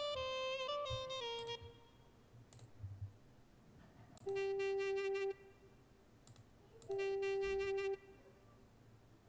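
Sampled mey (Turkish double-reed pipe) from Ethnaudio's Breath of Anatolia Kontakt library. A short melodic phrase ends about a second and a half in. Then the 'Mey G Fast' patch plays two single held notes of about a second each, with a few soft clicks between them.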